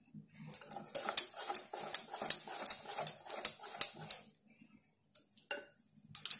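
Wire whisk beating cake batter in a glass bowl, its wires clinking against the glass about three times a second; the beating stops after about four seconds, and a sharper clink comes near the end.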